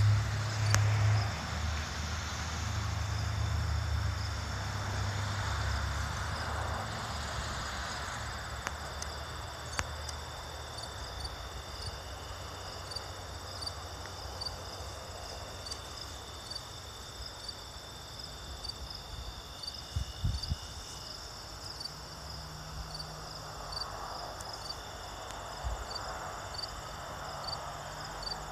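Crickets chirping steadily in a high, even rhythm of about two chirps a second. A low rumble on the microphone fills the first few seconds, and there is a brief knock about two-thirds of the way through.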